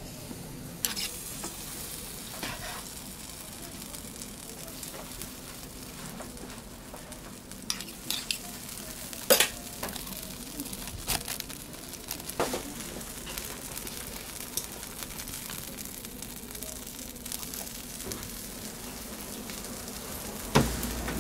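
Bungeoppang batter sizzling steadily in hot fish-shaped griddle molds, with a few sharp metallic clicks and clanks from the molds and tools, the loudest about nine seconds in.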